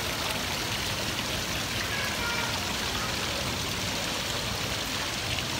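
Water from an indoor fountain streaming and splashing steadily.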